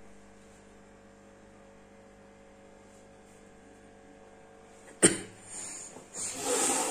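Steady low electrical hum with a few faint steady tones. About five seconds in comes a sharp knock, followed by two short bursts of rustling noise.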